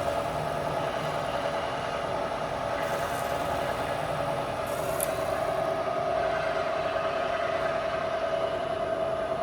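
Bridgeport CNC knee mill running, its variable-speed head giving a steady whine over a constant mechanical hum.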